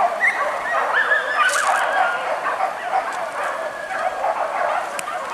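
A pack of hunting dogs yelping and baying at a distance, many short calls overlapping, as they trail a wild boar through the forest.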